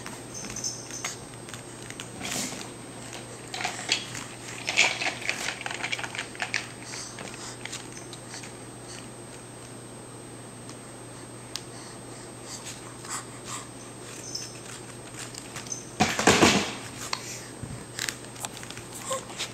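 A baby handling a plastic shape-sorter lid on a foam play mat: scattered light plastic clicks, taps and scrapes, with a louder run of knocks about sixteen seconds in.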